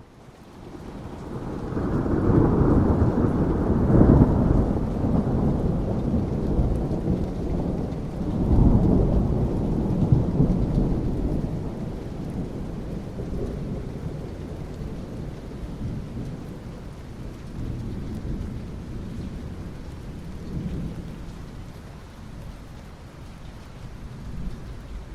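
Rolling thunder over steady rain. The deep rumble swells up over the first couple of seconds, surges again about nine seconds in, then slowly dies away, leaving the hiss of the rain.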